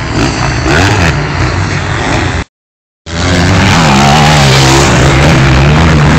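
Motocross motorcycle engines running and revving on the dirt track. The sound cuts out for about half a second some two and a half seconds in, then a nearby bike's engine is loud and steady, its pitch wavering up and down as the throttle is worked.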